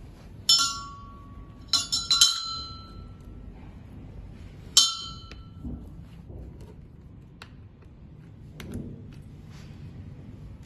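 Metal chair parts clinking together: a handful of sharp, briefly ringing clinks, three in quick succession near two seconds in and one more near five seconds, then softer handling knocks.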